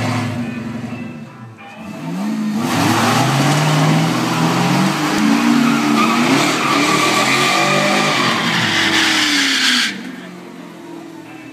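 Pontiac Firehawk's LS1 V8 doing a burnout: a short rev, then the engine held at high revs with the pitch going up and down while the rear tyres spin and squeal. The noise stops abruptly near the end.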